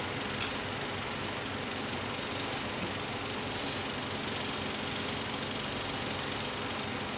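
Kitchen exhaust hood fan running steadily: an even rush of air with a low hum. Two faint light clinks, about half a second in and again near four seconds.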